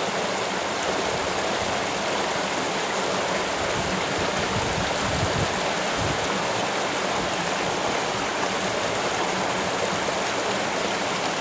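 Small waterfall splashing into a creek pool, a steady rush of falling and flowing water.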